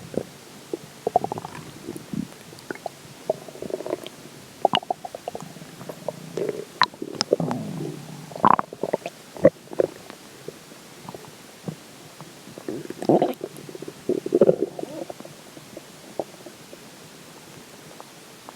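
A stomach full of water gurgling and growling: irregular bubbling gurgles, squelches and sharp little pops, loudest in two clusters about halfway and two-thirds of the way through, then dying down near the end.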